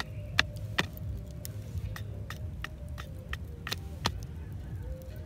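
Wooden stick knocking and scraping against a wooden board: irregular sharp clicks, the loudest about half a second in and near four seconds in, over a steady low rumble.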